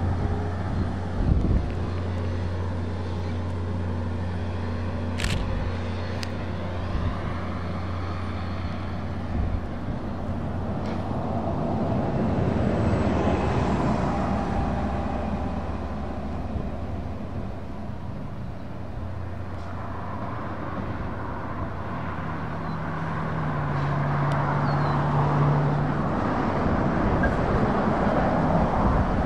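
Diesel locomotive engines of a short freight train running as it passes, a steady low engine hum that swells and fades slowly.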